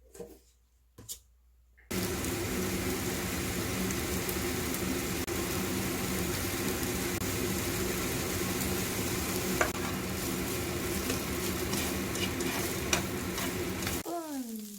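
Pork cartilage (odolbyeo) sizzling and frying in a pan, with a steady low hum underneath and scattered small pops and clicks. It starts abruptly about two seconds in and drops away suddenly near the end.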